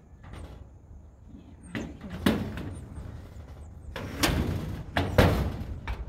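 Metal shed door being pushed and shifted, rattling and knocking several times, with the sharpest knocks about two seconds in and near the end.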